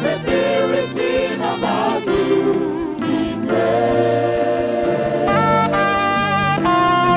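Live gospel music: a choir singing with saxophone and trumpets. In the second half, long held notes step upward in pitch.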